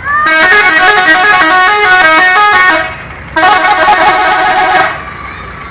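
Loud telolet musical horn on a Subur Jaya bus, playing a quick tune of stepping notes for about two and a half seconds, then, after a short break, a second shorter blast of several tones together.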